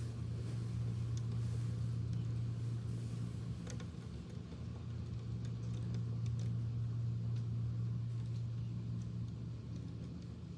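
Electric fan running with a steady low hum, over rain falling outside, with scattered sharp taps of drops striking.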